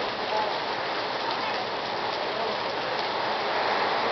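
Torrential rain falling steadily in a dense, even hiss, splashing onto flooded pavement and parked cars.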